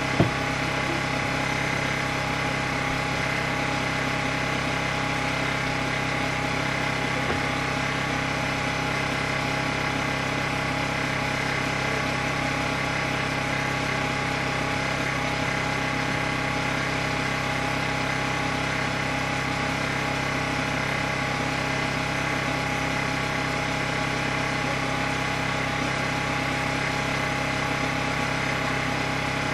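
A steady mechanical hum, like an engine idling, with one sharp knock just after the start.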